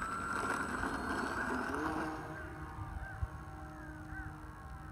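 Electric motor and propeller of an E-flite T-28 Trojan RC plane whining at full throttle on takeoff, its pitch rising in the first two seconds and then fading as the plane climbs away. Wind rumbles on the microphone.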